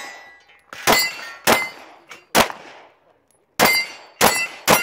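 Handgun shots fired in a quick string, about six in four seconds with a pause of about a second near the middle. Several shots are followed by a short metallic ring, the sound of steel targets being hit.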